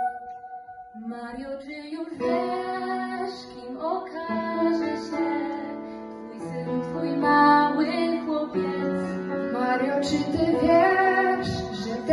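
Live grand piano accompaniment with a girl's voice singing held notes of a slow song; the music comes in about a second in after a short pause.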